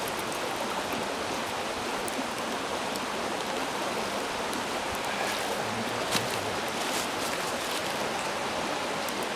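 Shallow river running over stones: a steady rushing of water, with a few faint clicks over it.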